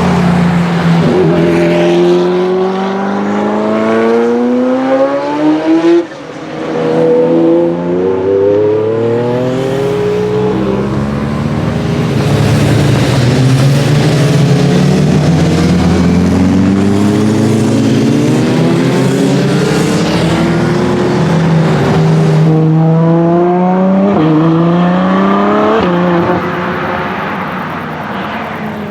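Ferrari F40 LM's twin-turbo V8 accelerating hard through the gears: the engine note climbs steadily and drops sharply at each of several upshifts, then fades near the end.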